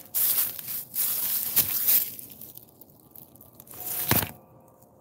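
Rustling, scraping noise of a phone being handled, its microphone rubbing against clothing. The noise is heavy for the first two seconds, then comes again in one short burst about four seconds in.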